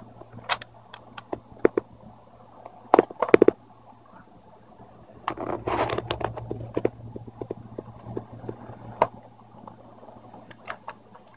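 Small clicks, taps and scraping from hands working the display ribbon-cable connector and plastic parts of a laptop screen, with a quick cluster of sharp clicks about three seconds in and a longer scratchy rustle around six seconds. A faint steady low hum runs underneath.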